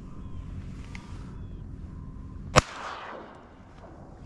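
A single shotgun shot about two and a half seconds in, ringing out briefly afterwards, over a low steady rumble.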